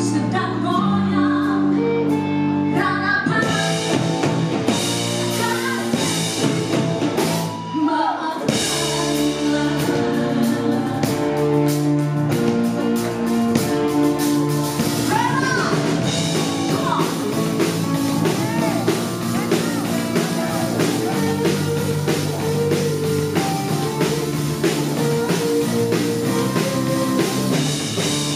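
Live band music: drum kit, electric bass, electric guitar and keyboard, with a woman singing into a microphone. The drums come in with a steady beat a few seconds in.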